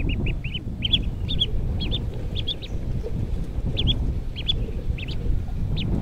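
Ducklings peeping: many short, high chirps in quick clusters with brief pauses, over a steady low rumble.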